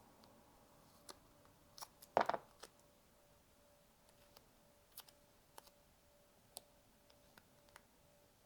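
Faint scattered clicks and taps from small plastic parts being handled, with one short, louder rustle a little over two seconds in.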